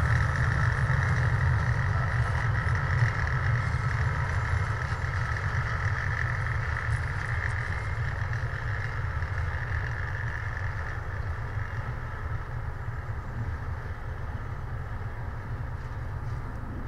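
Diesel-hauled freight train receding down the line, a deep rumble of its engines and wagon wheels fading slowly. A higher hum dies away about two-thirds of the way through, leaving the low rumble.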